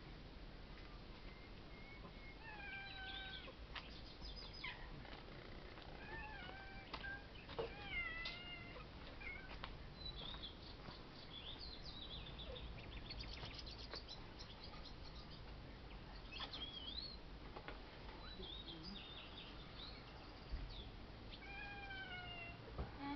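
Cats meowing again and again, faint, with short rising and falling calls scattered throughout.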